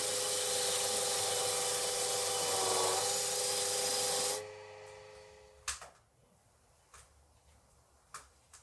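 Motor-driven wire brush wheel scouring rust off an iron axe head: a loud, scratchy hiss over the steady whine of the spinning wheel, which dips slightly in pitch around three seconds in. It stops abruptly at about four seconds, leaving only a few faint clicks.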